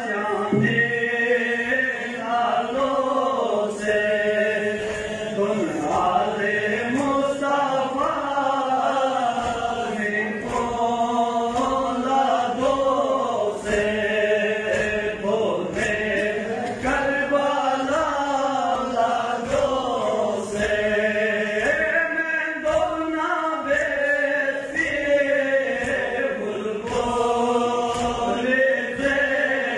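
A male reciter chanting a Balti noha, a Shia lament, into a microphone in a long, bending melodic line, with a crowd of men's voices joining in, over a steady beat of low thumps about twice a second.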